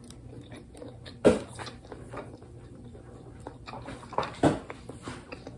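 A person chewing food, with a few short, louder mouth sounds about a second in and twice near the end.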